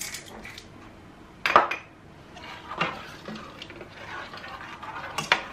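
Metal spoon and lids clanking against stainless steel cooking pots, with a sharp clank about a second and a half in, a lighter one near three seconds and another near the end, and soft scraping in between.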